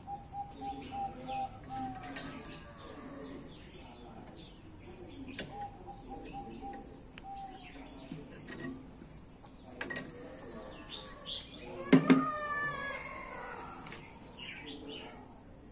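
Birds calling in the background: two runs of quick, even repeated notes. Over them come a few sharp clicks of pliers working a square steel tube, and a louder knock about twelve seconds in.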